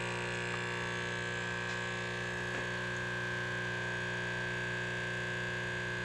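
Belmoca capsule coffee machine's pump humming steadily as it brews a double espresso, the machine working normally again.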